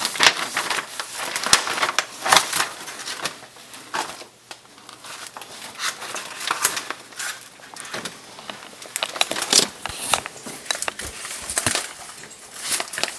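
Irregular crinkling and rustling, a string of sharp crackles of uneven loudness, like paper or plastic being handled.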